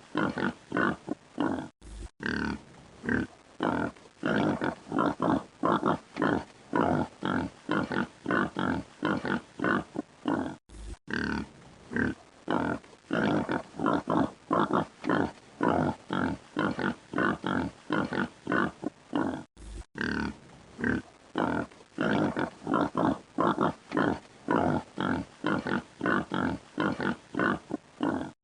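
Pig grunting in a quick, steady run of short grunts, about three a second. The run is broken by three momentary gaps.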